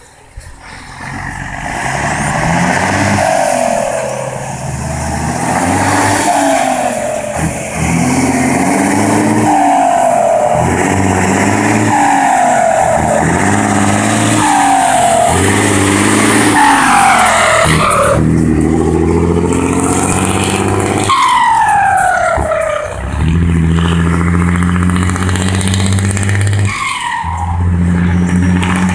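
Mercedes-Benz 1933 truck's turbo-diesel engine pulling hard, its pitch climbing and dropping back again and again. After each drop the turbo gives a falling whistle and the exhaust crackles. Near the end the engine settles to a steadier tone.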